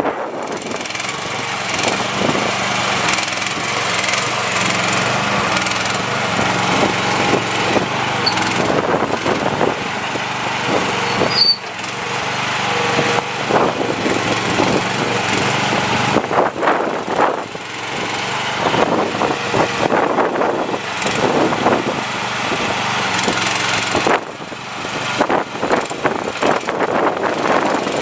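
A mini excavator's 13.5 hp gasoline engine running steadily, its note shifting as the hydraulics are worked, with scattered knocks and clatter from the machine.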